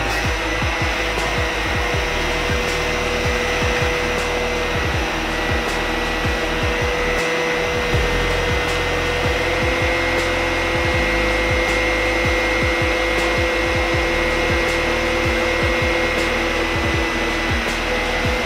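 Electric drum pump with a FLUX F 458 commutator motor, running steadily with a constant whine as it pumps liquid from the drum through the hose and dispensing nozzle.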